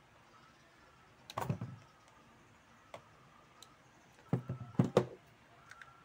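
Plastic ceiling-fan switch housing being handled and knocked about on a workbench: a short clatter about a second in, then a louder run of several knocks and rattles near the end.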